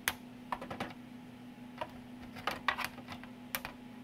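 Circuit cards being slid back into their card-edge connectors in an electronics chassis: a handful of sharp, irregular clicks and light knocks, with a steady low hum underneath.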